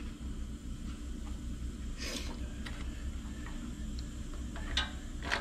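A few soft clicks and rustles of hands handling a generator's plastic air cleaner housing, over a steady low hum.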